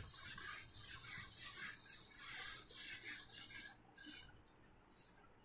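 A handheld whiteboard eraser rubbing across a whiteboard in quick back-and-forth strokes, about three a second, wiping off marker writing. The strokes stop about four seconds in, with a couple of faint wipes after.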